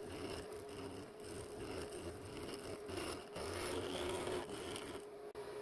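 Milling machine cutting an aluminium block with an end mill: a steady hum under a rough, scraping cutting noise that swells and eases, with a short break near the end.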